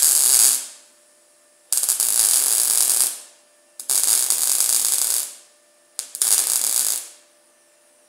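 MIG welder arc laying four short welds on the steel minibike frame, each a crackling hiss lasting a second or so with brief pauses between. A broken bracket weld is being re-welded.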